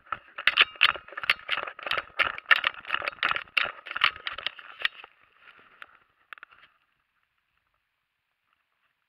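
Model aircraft touching down on a grass slope, heard from its onboard camera: a fast, irregular series of knocks and rattles as the airframe bumps and skids over the ground. The rattling dies away about six seconds in as the model comes to rest.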